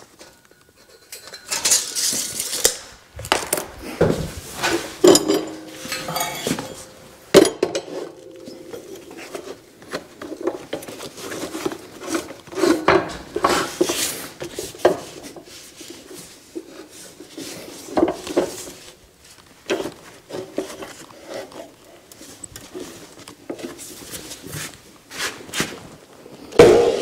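Painted steel tubing handled on a concrete floor and set into a chop saw's vise: irregular metallic clanks, knocks and scrapes, some leaving a short ring from the tube. Near the end an abrasive chop saw's motor starts up loudly.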